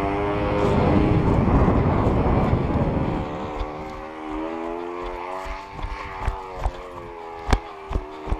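KMD-2.5 model airplane engine, a small 2.5 cc compression-ignition engine, running steadily in flight with a constant buzz that wavers only slightly in pitch. Rushing wind noise covers it in the first few seconds, and several sharp thumps come in the second half.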